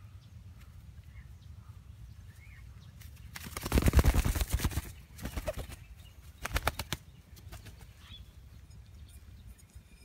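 A captured dove beating its wings in a person's grip: a fast flurry of wingbeats starting about three and a half seconds in and lasting over a second, then two shorter flurries.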